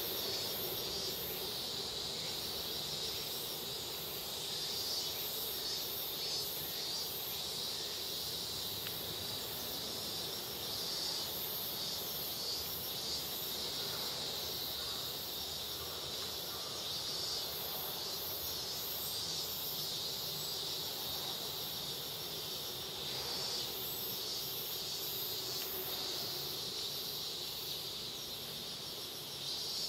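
Steady high-pitched insect buzzing, pulsing a few times a second, over a low steady hum.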